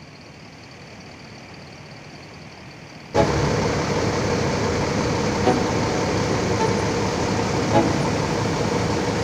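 Faint distant engine noise for the first few seconds, then about three seconds in a sudden change to the close, steady running of a Mercedes-Benz diesel coach engine as the bus moves slowly across the yard. Two brief sharp sounds stand out over the engine.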